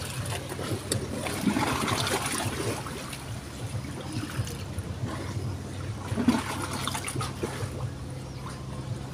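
Shallow river water trickling and gurgling steadily, with a couple of brief, slightly louder splashy moments.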